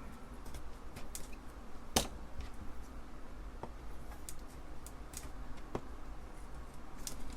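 Scattered small clicks and ticks of metal and plastic parts being handled as the brass RF shield is worked loose from an Apple II Plus keyboard, with one sharper click about two seconds in.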